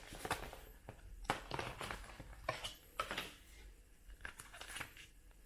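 Faint rustling of paper and cardboard packaging, with scattered light clicks and taps, as the contents of a phone box are handled and lifted out.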